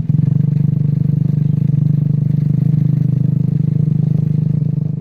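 Engine of a motorised along-along cart running steadily while under way, an even hum that holds one pitch throughout.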